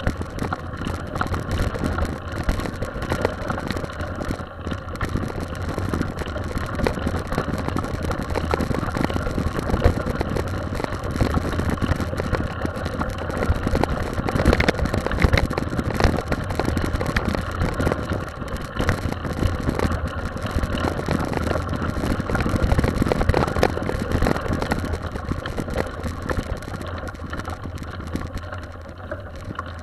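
Mountain bike rolling over a gravel trail: tyres crunching on stones and the bike rattling over bumps, over a steady low wind rumble on a bike-mounted camera's microphone.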